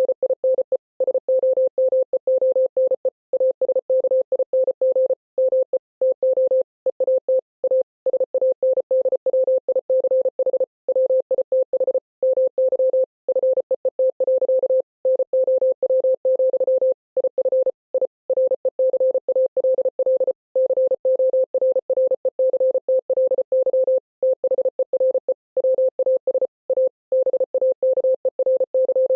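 Morse code beeps: one steady mid-pitched tone keyed rapidly on and off in short and long marks, with brief pauses between letters and words, spelling out a text at speed.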